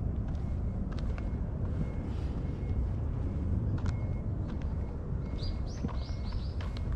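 Steady low rumble with scattered faint clicks. Near the end a bird gives a quick run of about five short falling chirps.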